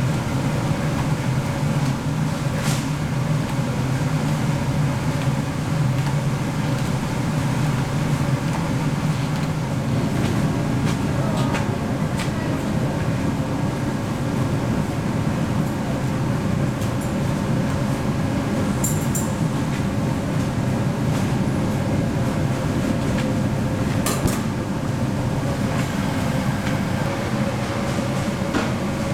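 Steady low hum of candy-factory machinery, with a few short clicks and knocks.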